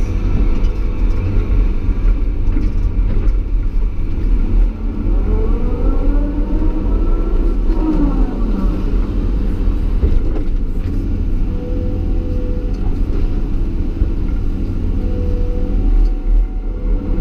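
Caterpillar 320E excavator heard from inside its cab: a steady low diesel drone with hydraulic whine over it. The whine's pitch rises and falls as the boom and bucket are worked, most clearly about five to nine seconds in and again near the end.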